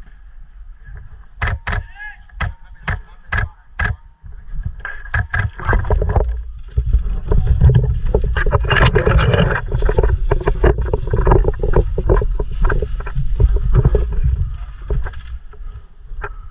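A run of six sharp airsoft gun shots, about half a second apart, followed from about five seconds in by loud, dense rustling and knocking noise close to the microphone.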